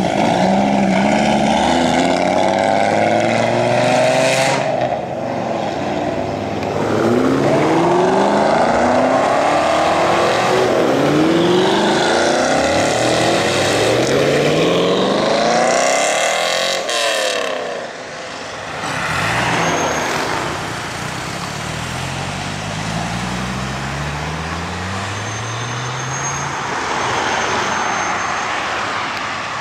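Dodge Viper V10 engines accelerating away, revving up through the gears in a series of rising sweeps. Partway through, a second Viper takes over, quieter, again climbing in pitch gear by gear as it pulls away.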